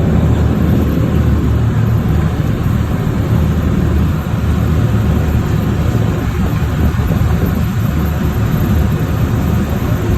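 Amphibious duck boat's engine running with a steady low drone.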